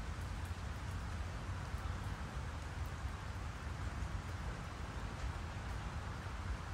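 Steady rain falling, an even hiss with faint scattered drip ticks, over a low steady rumble.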